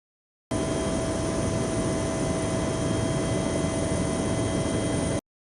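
Steady aircraft engine noise with several steady whining tones above it, starting abruptly about half a second in and cutting off just before the end.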